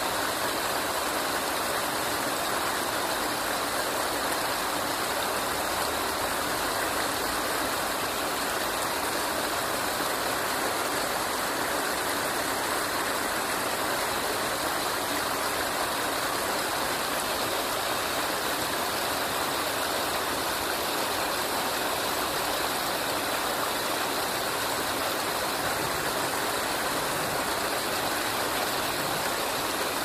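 Fast-flowing stream water rushing over shallow rapids: a steady, unbroken rush of water.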